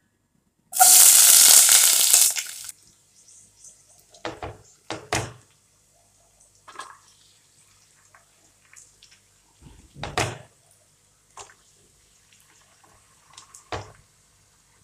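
Cooking at a pan on a gas stove: a loud rushing hiss for about two seconds near the start. After it come a handful of separate knocks and clatters of the pan and utensils over a faint steady sizzle, as chopped onions go into the oil.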